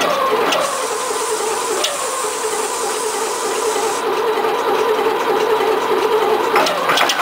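Starter motor cranking the old Bray wheel loader's diesel engine on a cold start, with a steady whine. Near the end the engine catches with a rising pitch and begins firing evenly.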